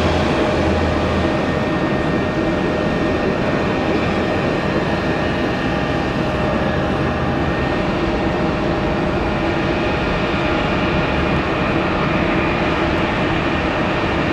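Steady jet aircraft noise from a Boeing 777: an even rumble with a few faint steady tones, holding level, with a low hum that is stronger for about the first second.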